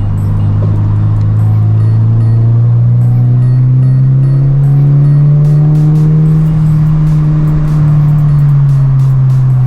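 Subaru BRZ's flat-four boxer engine under load, heard from inside the cabin, its pitch climbing slowly over the first half and then holding steady.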